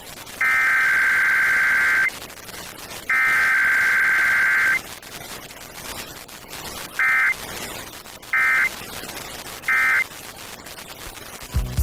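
Emergency Alert System SAME digital data bursts: two long header bursts of shrill, buzzing screech, then about two seconds later three short end-of-message bursts about 1.3 s apart. No attention tone or voice message comes between them.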